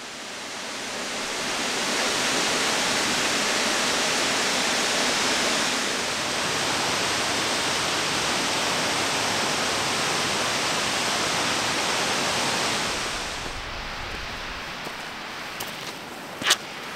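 Steady rush of Porcupine Falls plunging into its pool, which drops to a quieter, duller background about thirteen seconds in. A single sharp knock near the end.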